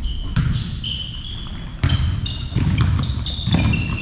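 Birds chirping in many short, high whistled notes, over a low rumble with irregular thumps.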